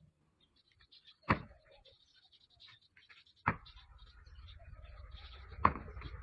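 Two sheep butting heads, three sharp head-on clashes about two seconds apart, with faint noise between them.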